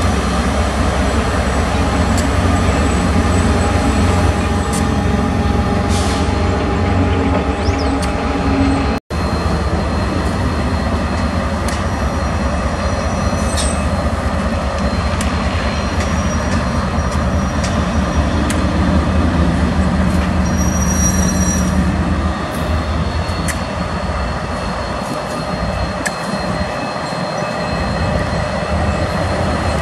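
Consist of KiwiRail diesel-electric locomotives, led by a DL-class unit, running slowly past with a steady deep engine rumble. Brief high squeals from the wheels come several times.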